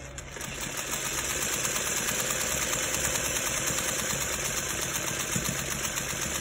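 Sewing machine running, stitching a seam through cotton quilt-block pieces. It starts up about half a second in, speeds up over the next second, then runs at a steady pace.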